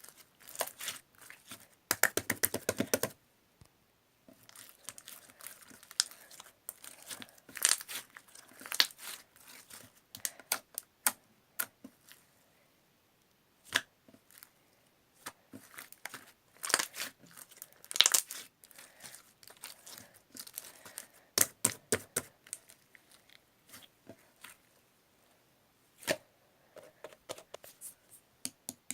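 Silver slime being worked by hand: stretched, folded and pressed, giving uneven runs of small sharp clicks and pops. The densest, loudest run comes about two seconds in.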